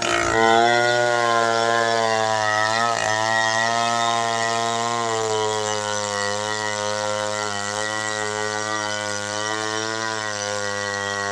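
Two-stroke chainsaw running at high, nearly steady speed while ripping through wood, its pitch wavering slightly, with a brief dip about three seconds in.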